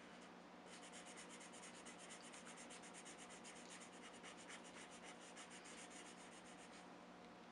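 Felt-tip marker scribbling quickly back and forth on paper to fill in a small dark spot: faint, about eight strokes a second, starting about a second in and stopping near the end.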